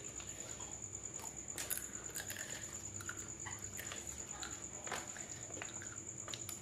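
Eating sounds of people eating rice by hand: scattered small clicks, rustles and chewing, with one sharper click about one and three-quarter seconds in, under a steady high-pitched whine.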